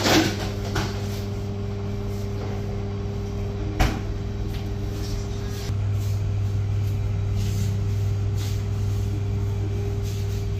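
Steady electrical hum of shop kitchen equipment, stepping up a little louder past halfway, with a sharp knock right at the start and another about four seconds in.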